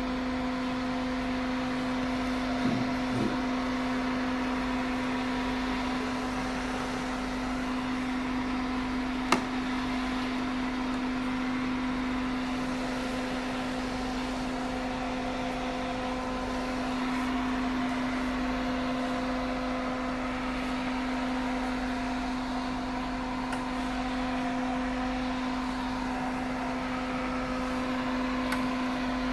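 A switched-on beauty treatment machine running with a steady pitched hum over a hiss. One sharp click about nine seconds in.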